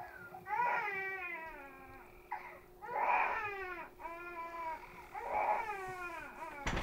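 A boy sobbing: a series of high wails that each fall in pitch, with pauses between them, over a steady low hum. A short knock comes near the end.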